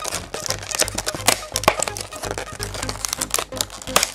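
Cardboard-and-plastic blister pack being torn and crinkled open by hand, a run of irregular crackles and rips, over background music.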